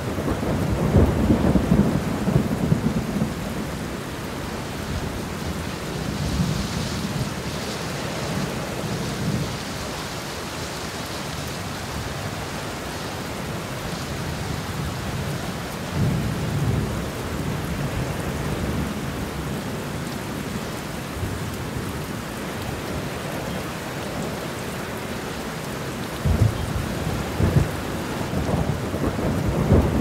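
Heavy rain falling steadily, with low rolls of thunder rumbling now and then, strongest in the first few seconds and again near the end.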